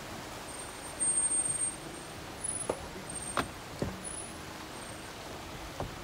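A 4x4 wading through a shallow river: a steady rush of water and vehicle noise, with a few sharp knocks or splashes about halfway through.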